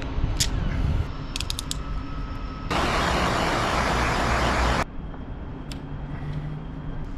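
Small sharp clicks from a screwdriver working on a navigation-light fitting, over a steady low background rumble. About three seconds in, a loud even hiss starts abruptly and cuts off about two seconds later.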